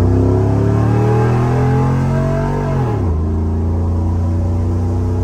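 Cammed 2006 GMC Sierra's 5.3-litre V8 with long-tube headers, heard from inside the cab while driving: the engine pulls with rpm climbing slowly, then drops sharply as the transmission shifts up about three seconds in, and settles into a steady cruise.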